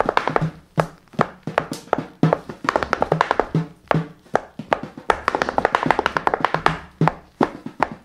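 Tap shoes striking a wooden board in quick runs of sharp taps, with a deer-skin frame drum beating low, pitched thumps among them.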